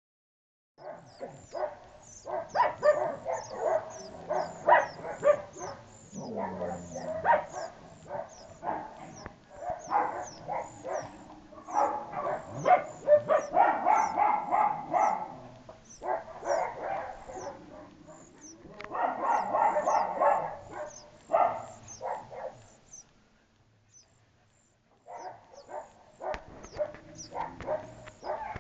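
Nestling songbirds begging: a long run of short, thin, high chirps repeated a few times a second, with louder bursts of dog barking that come and go over them.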